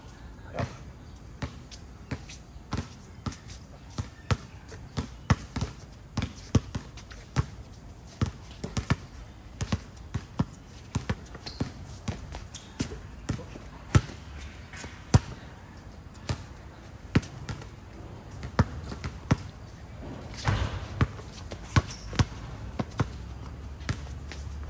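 Basketball being dribbled on a court: a long run of sharp bounces, about one to two a second, some much louder than others.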